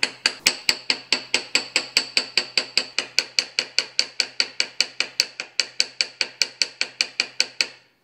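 Small hammer tapping rapidly and evenly on a knife handle's stainless pins, about five light taps a second, each with a short metallic ring; the tapping stops just before the end.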